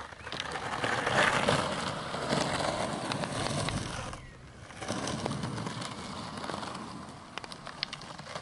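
Skateboard wheels rolling over a rough dirt track: a gritty rumble with small clicks of grit and stones. It drops away briefly about four seconds in, picks up again, and fades near the end.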